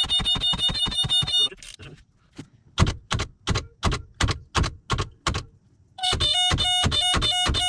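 Ratchet wrench on the crankshaft pulley bolt of a seized inboard boat engine, clicking in fast, ringing runs of about eight clicks a second. In the middle comes a slower series of about nine separate clicks.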